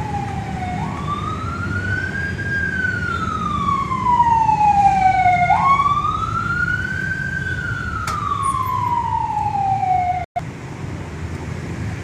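A wailing siren whose pitch slowly rises and falls, a cycle about every five seconds, over a steady low rumble; it cuts off abruptly about ten seconds in.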